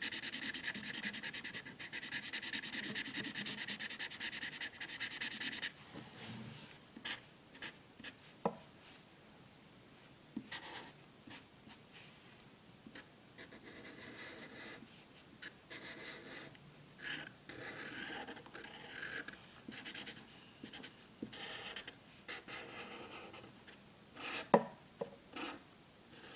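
Black marker scratching on paper: continuous rapid strokes for about the first six seconds, then short separate strokes. A sharp click near the end is the loudest sound.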